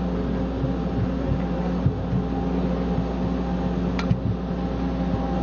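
Steady engine drone heard from inside a vehicle's cabin, with a short click about four seconds in.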